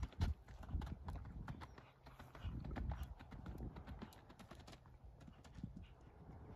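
A horse's hoofbeats on turf as it canters, a run of short irregular thuds over a low rumble.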